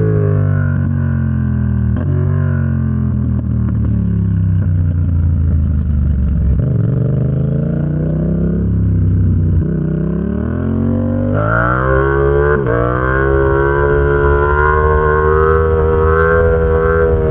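Yamaha XSR700's parallel-twin engine through an SC Project exhaust while riding: the engine note falls steadily as the bike slows, then builds again. About eleven seconds in it rises sharply and gets louder as the throttle opens, with a quick gear change a little later.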